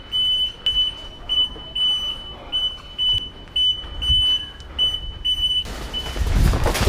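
High-pitched electronic alarm beeping over and over, about two beeps a second, which stops about five and a half seconds in; it is a building alarm, set off by going through the stairs. Near the end a loud rush of wind on the microphone.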